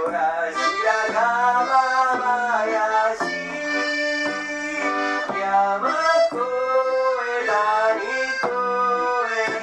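Accordion playing a bright, lilting melody with sustained chords, backed by upright bass and acoustic guitar in a steady beat.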